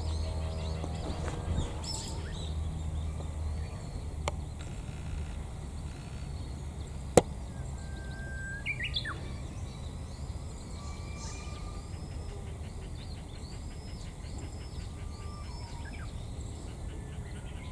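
Several small birds chirping and calling softly, with a short arching note repeated many times in the second half. A low rumble fades out over the first few seconds, and a single sharp click comes about seven seconds in.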